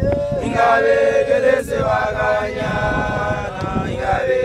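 Group of Basotho initiates chanting an unaccompanied song together in unison, with long held notes.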